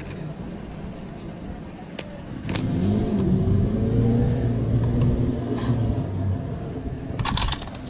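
An engine revs up about two and a half seconds in, its pitch rising and then settling, runs steadily for a few seconds and drops away. A quick burst of clicking or clattering comes near the end.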